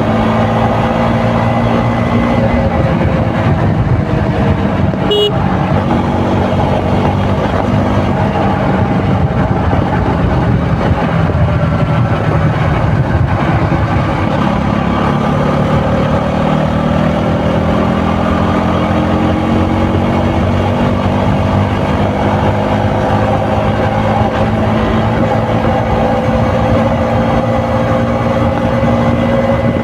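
KTM RC 200's single-cylinder four-stroke engine running through its stock exhaust while the bike is ridden, the engine note steady at first, then dropping and climbing again in pitch about halfway through as the throttle changes.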